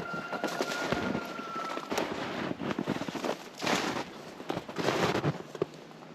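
Footsteps crunching and squeaking on cold, dry snow, a run of crackly steps at an uneven walking pace.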